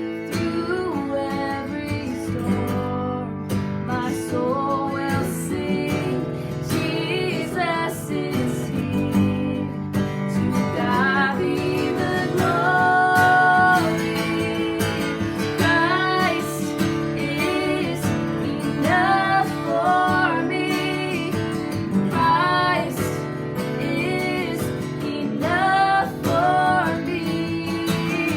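Worship song: acoustic guitar strumming under a woman singing the melody.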